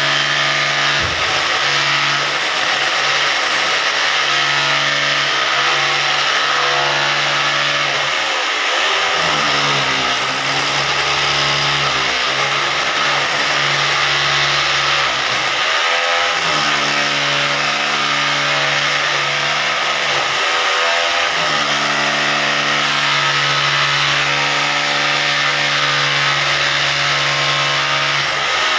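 Electric hammer drill motor running continuously while cutting, with a steady pitched whine over a harsh gritty noise; its pitch sags and recovers about four times as it bogs down under load.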